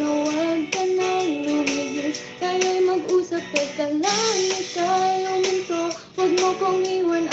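A young woman singing a song into a microphone over a backing track, holding long notes and sliding between them.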